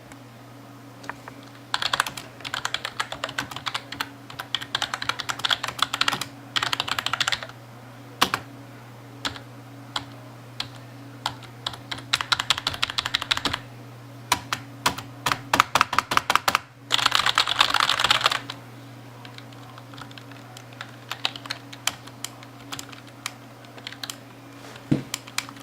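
Keys of a Redragon Vajra membrane keyboard being typed on: runs of fast, soft keystrokes separated by pauses and scattered single key presses, the keys mushy. A steady low hum sits underneath.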